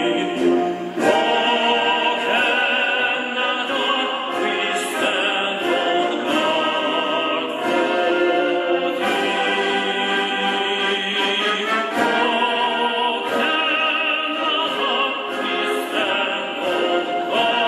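A national anthem playing from a recording: an orchestra with a choir singing, for a flag salute.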